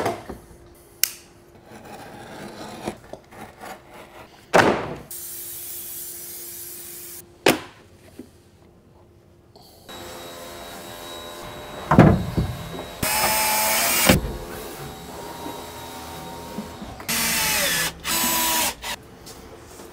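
Workshop handling sounds: scattered knocks and thuds, a couple of seconds of steady hiss, and a heavy thud past the halfway mark, followed by two short runs of a cordless drill-driver, the second a little longer, near the end.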